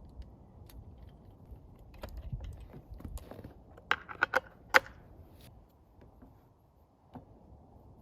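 Hand-handling of a chainsaw and its mill with the engine off: a low bumping rustle, then a quick run of sharp metallic clicks about four seconds in, the loudest near the fifth second, and one faint click later.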